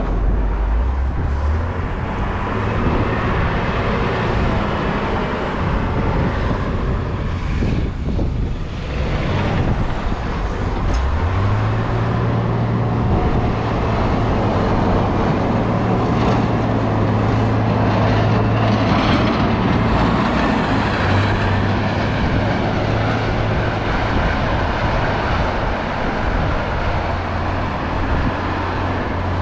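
Steady city street noise with the low rumble of passing vehicle traffic.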